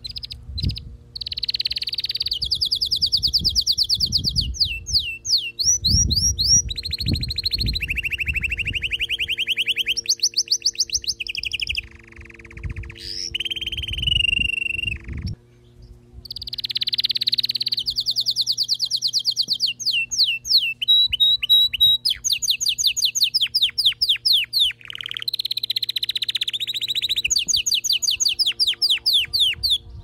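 Canary singing a long song of rapid trills and rolls: phrase after phrase of quick repeated notes, some rising and falling, with a brief pause about halfway through.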